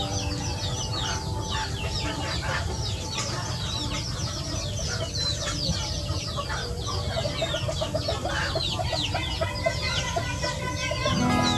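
Flock of half-grown chickens feeding and calling: a constant scatter of short, high, falling peeps, with a quick run of clucks about seven seconds in.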